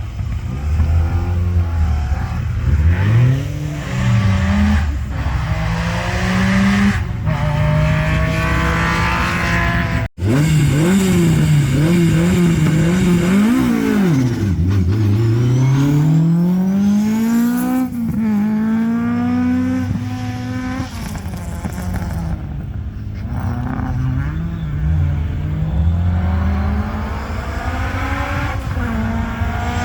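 Historic rally car engines revved hard at a special-stage start, the pitch swinging up and down with throttle blips, then long rising pulls with sudden drops as a car accelerates away through the gears. The sound cuts out for a moment about ten seconds in.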